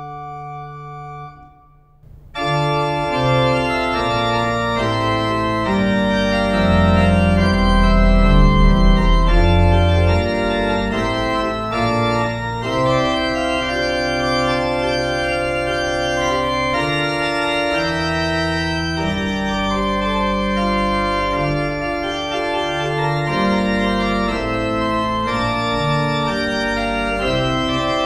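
Two-manual church organ playing a prelude: a held chord stops about a second in, a short pause follows, then a louder passage of sustained chords over deep bass notes.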